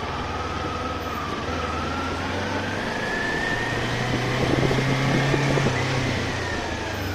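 Kawasaki Ninja 400's parallel-twin engine running at low revs in slow traffic. It picks up revs about halfway through and eases off again near the end.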